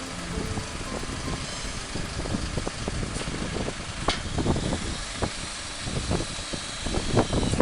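Tow truck running, with irregular knocks and clatter that grow busier about halfway through.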